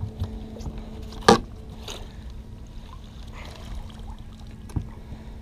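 A landing net being lifted out of the water with a fish, water splashing and dripping from the mesh, over a steady low hum. A sharp, loud knock about a second in, and a softer one near the end, as gear bumps the boat.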